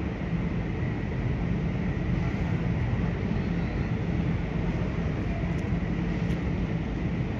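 Steady low rumble with a constant hum and a faint high-pitched whine: the background machinery and traffic noise of an elevated railway station, with no train passing.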